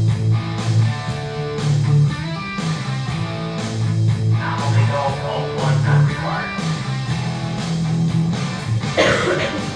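Instrumental background music with a steady beat and a strong bass line, the soundtrack of a projected video, with a brief rushing swell near the end.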